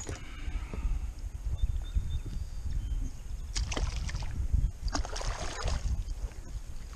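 Water splashing twice, about three and a half and five seconds in, as a released fish kicks away at the surface, over a steady low rumble.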